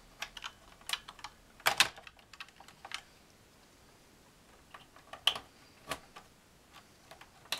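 Irregular clicks and clacks from hands handling the BBC Master 128's keyboard and its ribbon-cable connectors as the keyboard is reconnected. The louder clacks fall near two seconds in and again around five to six seconds in, with a quieter spell between.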